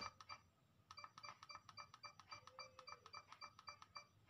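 Faint electronic tune of quick, short high notes, about five a second, over otherwise near-silent room tone.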